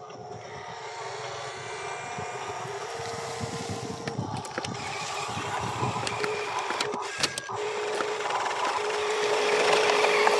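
Radio-controlled dump truck's electric motor whining steadily while the tipper bed rises and the dirt load slides off, growing louder toward the end, with a few sharp clicks.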